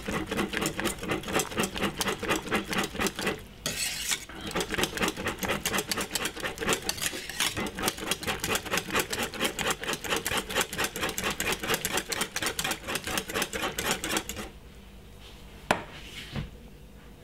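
Wire balloon whisk beating thick peanut porridge in a stainless steel saucepan, its wires rattling and scraping against the pan at several strokes a second. It pauses briefly a few seconds in, and the whisking stops near the end, followed by a single sharp click.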